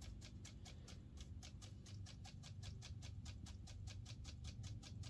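Hake brush dabbed rapidly against watercolour paper to texture tree foliage: a fast, even run of faint taps, about seven or eight a second.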